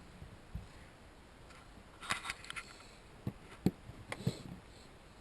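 Scattered sharp clicks and knocks from handling tools and bolted trim parts in the SUV's cargo area, with a quick cluster of clicks about two seconds in and a few single knocks later.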